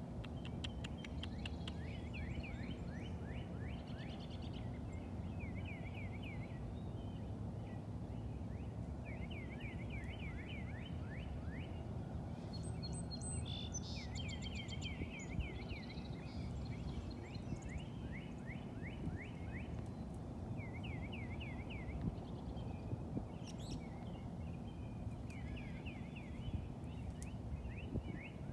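Repeated short trills of quick rising pulses, each trill about a second long, calling again and again over a steady low rumble.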